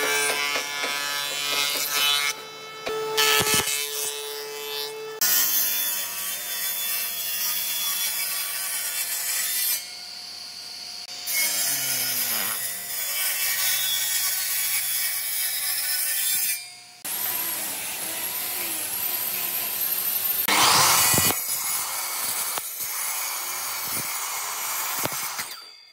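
Woodworking machines cutting weathered railway-sleeper timber in several short stretches that change abruptly: a jointer planing the face, a table saw ripping it, and a miter saw crosscutting the block. Each has a steady motor whine under the noise of the blade cutting through the wood. The loudest cut comes a little before the end.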